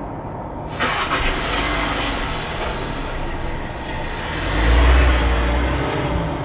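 A vehicle engine starting up and running, with a low rumble that swells loudest about four to five seconds in and then eases.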